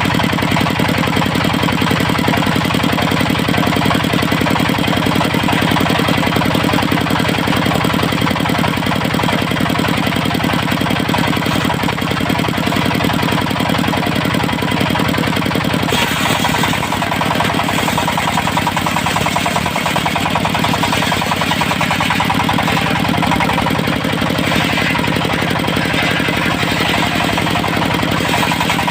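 Diesel engine of a portable circular sawmill running steadily with a fast, even clatter; its sound changes about halfway through.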